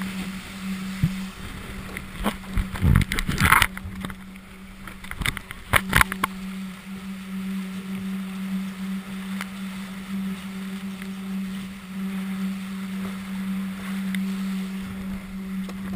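Water rushing and splashing along the hull of an XS-35 catamaran sailing at speed, heard right at the waterline, over a steady low hum. A cluster of sharp splashes or knocks comes about three seconds in and another about six seconds in.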